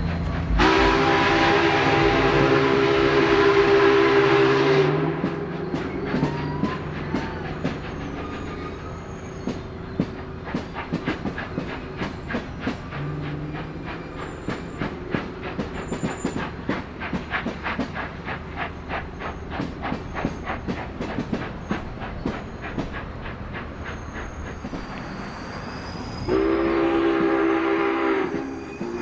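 Union Pacific 844 steam locomotive's whistle sounding one long, deep chord blast for about four seconds. The train rolls with a fast, even clatter, and a second long whistle blast comes near the end.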